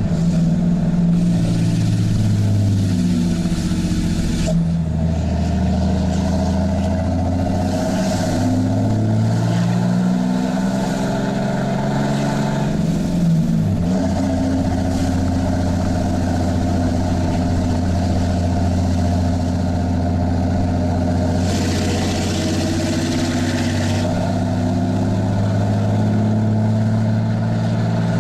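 Straight-piped 6.7L Cummins inline-six turbo diesel in a Ram 3500 pulling a trailer, its loud exhaust note heard inside the cab. The engine pitch rises and falls as it pulls, with a brief drop and recovery partway through, as with a shift of the six-speed manual.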